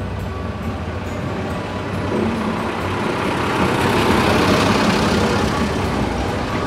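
Small Chiemsee-Bahn locomotive passing close by at a slow pace with its carriages, its engine running with a low steady hum. The noise rises to its loudest as the locomotive goes by about four seconds in.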